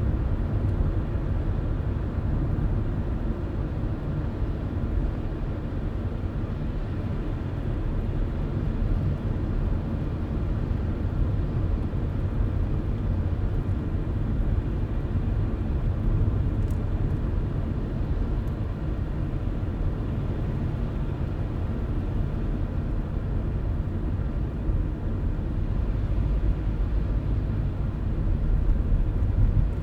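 A car driving at a steady pace: a steady low road rumble, with a faint even hum under it.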